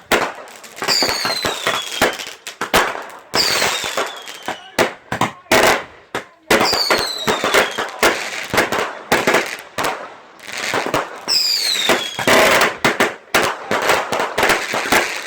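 Fireworks going off in quick succession: many sharp bangs and crackles, with four whistles that fall in pitch as they fly.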